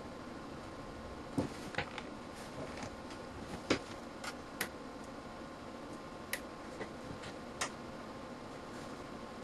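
About eight sharp clicks at irregular intervals, over a steady electrical hum: a homemade surge tester firing 2 kV pulses into a Gardner Bender GDT-311 digital multimeter.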